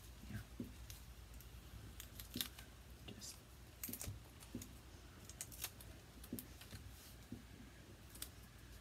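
Light, irregular clicks, taps and paper rustles of small paper craft pieces being handled and positioned on a desk.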